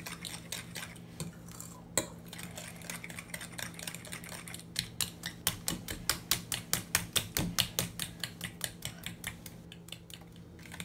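Eggs and sugar being beaten by hand in a bowl: a utensil clicking against the bowl over and over, irregular at first, then settling into an even rhythm of about five taps a second in the second half. The beating is to dissolve the sugar into the eggs.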